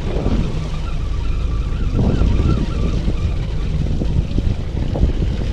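Steady low rumble of a fishing boat's engine, with a few soft thumps.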